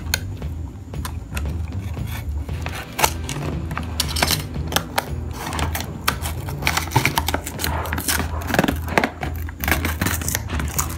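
Clear plastic blister packaging on a cardboard backing card crackling and clicking as it is handled and pried apart, in many short, uneven crackles.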